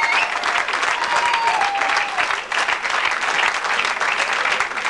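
A large audience applauding: dense, continuous clapping from many hands.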